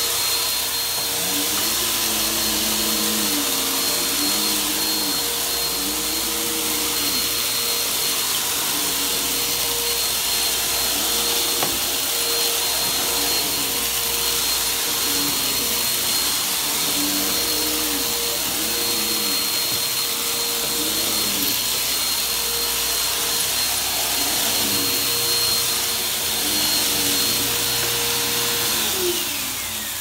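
Bissell PowerForce Helix bagless upright vacuum cleaner running on carpet: a steady whooshing motor whine, with a lower note that rises and falls in pitch over and over. Near the end the motor is switched off and winds down, its whine sliding down in pitch.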